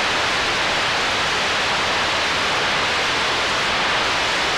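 Steady static hiss from a CB radio receiver tuned to channel 11 AM (27.085 MHz), with no station coming through: the open band noise between transmissions.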